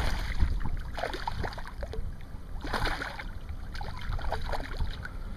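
Hooked largemouth bass thrashing and splashing at the water's surface as it is reeled in. The splashes come in irregular bursts, the loudest about three seconds in, over a low steady rumble.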